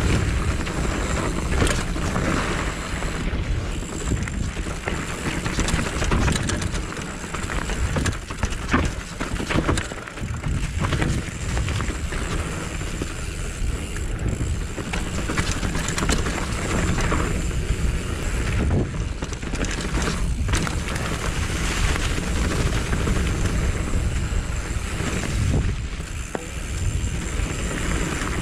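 Mountain bike being ridden on a dirt forest trail, heard through an onboard GoPro: a steady rush of tyre and wind noise with frequent rattles and knocks from the bike over bumps.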